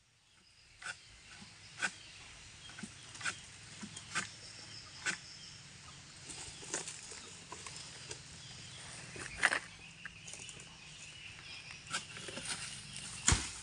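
Faint, irregular sharp knocks and rustling of palm fronds as a harvester's long-pole sickle works at the crown of an oil palm, the loudest strikes about nine seconds in and near the end.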